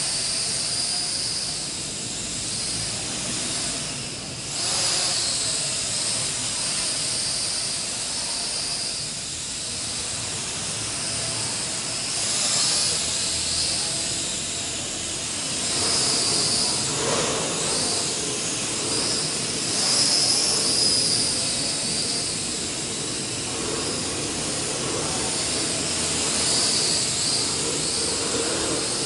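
Small RC quadcopter's motors and propellers whining steadily in flight, a high hissing buzz that swells and eases several times as the throttle changes.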